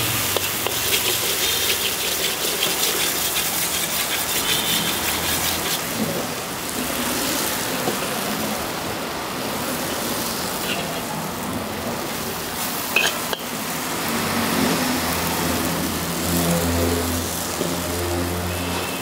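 Pad Thai frying in a wok at a street-food stall: a steady sizzle with frequent clicks and scrapes of a metal spatula, over a low traffic hum.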